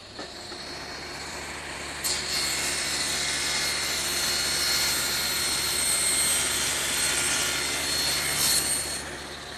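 Table saw with an ordinary blade running, then cutting lengthwise down the end of a wooden workpiece stood on end (the cheek cut of a mortise-and-tenon joint). The cut grows louder about two seconds in, holds with a steady high whine, and eases off near the end.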